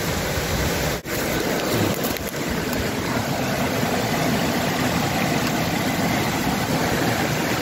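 Steady rush of a fast creek running over rocks, briefly cutting out about a second in.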